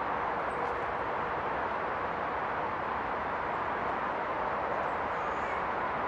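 Steady rush of flowing river water, an even unbroken noise with no rise or fall.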